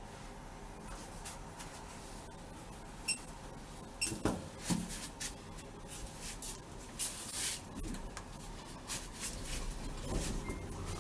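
Inside a lift car: a short electronic beep about three seconds in, then scattered clicks, knocks and rustling over a steady low hum.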